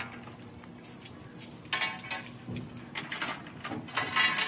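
Beads of a bead-maze toy clacking and clattering on their wire tracks as a baby's hands push them, in short bursts of clicks about two seconds in and again, louder, near the end.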